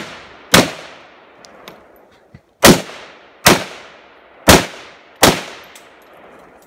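Five gunshots from a competitor shooting a 3-gun stage, each with a short trailing echo: one about half a second in, then after a two-second pause four more in steady succession.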